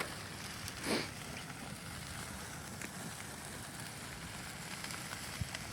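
Campfire burning with a steady hiss and a few faint crackles, and a short louder rush of sound about a second in.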